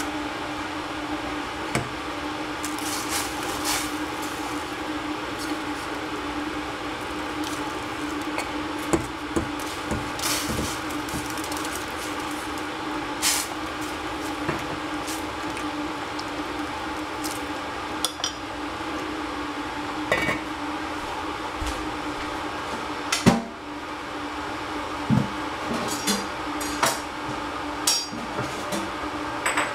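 Wooden chopsticks stirring noodles in a stainless steel saucepan of boiling water, tapping and clinking against the pot now and then over a steady hum. About three-quarters of the way through comes the loudest clank, the pan's steel lid going on, followed by a few lighter knocks.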